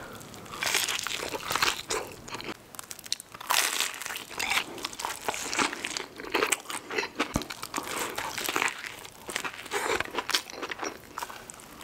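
Close-miked eating sounds: crunching bites into a battered onion ring dipped in sauce, then bites and chewing of a saucy cheeseburger, with many irregular crackles and crunches.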